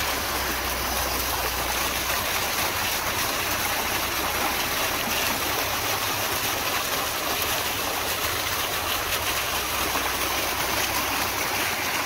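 Water from a fountain's jets splashing steadily into its basin around the ice-covered structure.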